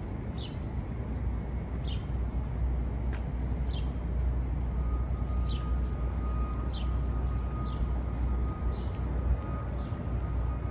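Small birds chirping again and again, short high downward-sweeping chirps about once a second, over a steady low outdoor city rumble. A thin steady tone comes in about halfway through.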